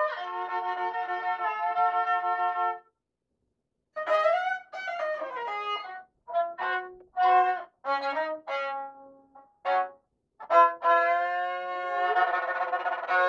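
Solo violin playing a melody in phrases separated by short pauses, the longest a break of about a second after the first phrase.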